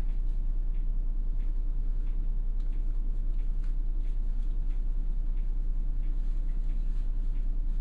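Hankyu city bus heard from inside the cabin: a steady engine drone and low rumble at an unchanging pitch, with faint scattered ticks and rattles.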